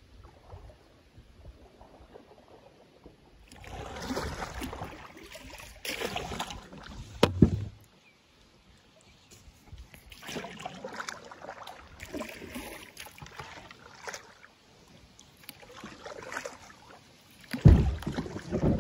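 Kayak on a shallow river: irregular bursts of water splashing and sloshing around the hull, with a sharp knock about seven seconds in and louder, deeper splashes near the end.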